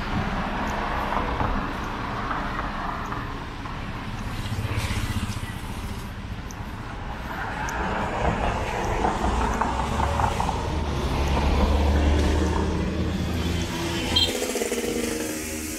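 City street traffic: motor vehicles driving past, with a heavy low engine rumble building and passing about nine to thirteen seconds in. Music comes in near the end.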